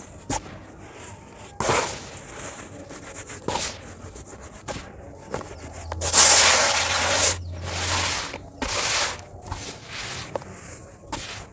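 Dry sand and crumbled sand lumps sifting and pouring through fingers into a bucket of loose sand: a series of gritty hissing pours with small clicks of lumps landing, the longest and loudest pour about six seconds in.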